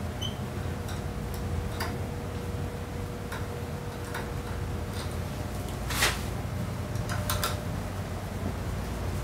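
Small scattered metallic clicks and ticks of hand work on a scooter's front axle hardware, with one louder click about six seconds in and a quick pair soon after, over a steady low hum.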